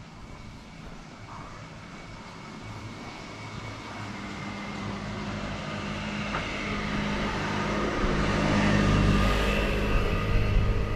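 A vehicle's engine drawing near, growing steadily louder, with a steady low hum and rising noise that are loudest near the end.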